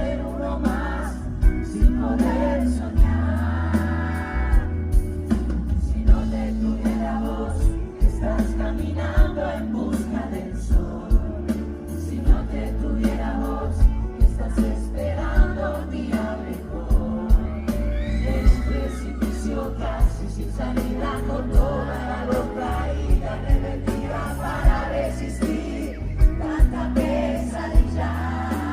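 Live pop-rock band playing with sung vocals over a steady drum beat and heavy bass.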